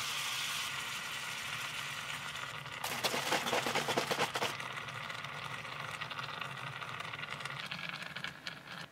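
Vegetables and leaves rustling and crinkling as a hand handles them in a small electric pot, loudest for about a second and a half starting about three seconds in, over a steady background hiss. Near the end, soy milk is poured from a carton onto the vegetables.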